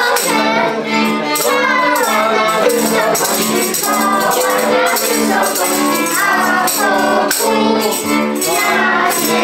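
Group of children and adults singing a Polish Christmas carol (kolęda) together, accompanied by a violin, with a shaken percussion instrument keeping a steady beat.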